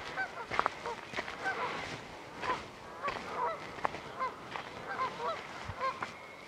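Waterfowl on the lake honking, many short rising-and-falling calls, several a second, from more than one bird.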